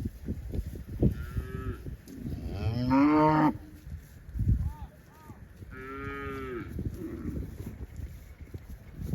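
Cows mooing, several separate calls. The loudest and longest comes about three seconds in, and another follows near the six-second mark.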